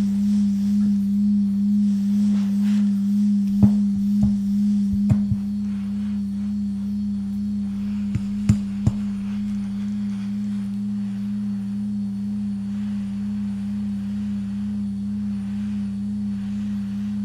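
A steady low electrical hum, with a few light metallic clicks between about three and a half and five seconds in and again around eight to nine seconds in.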